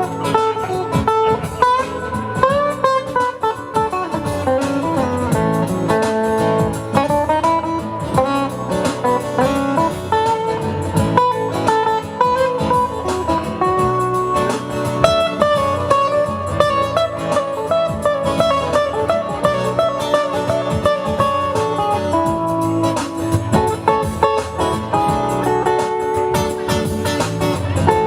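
Instrumental guitar music, a picked melody line of changing notes over a steady lower accompaniment, playing without a break.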